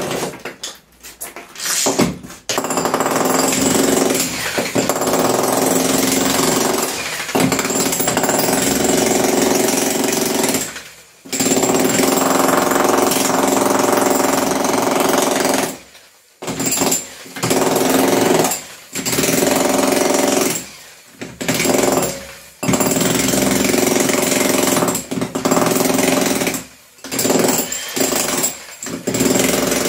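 1999 Hitachi H65SB electro-pneumatic demolition hammer chiselling into brick and mortar, running in stretches of a few seconds with short stops in between. It is the test run after repair of its sliding sleeve, which had been jammed by a broken spacer washer, and it hammers steadily.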